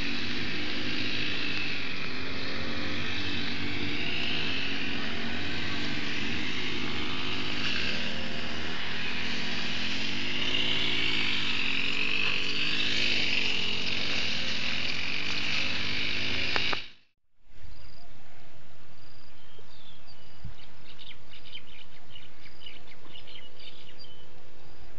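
Motorised grass trimmers running, their small engines revving up and down. About two-thirds of the way through the sound cuts out abruptly, giving way to a much quieter outdoor background with a run of rapid high chirps, like insects.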